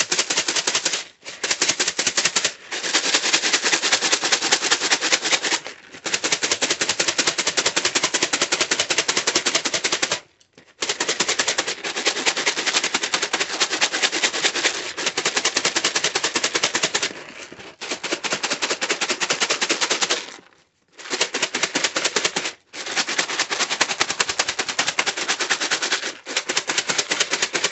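Corn-cob pet bedding rattling inside a sealed plastic deli container shaken hard by hand to coat it with acrylic paint: a loud, fast, continuous rattle broken by several brief pauses.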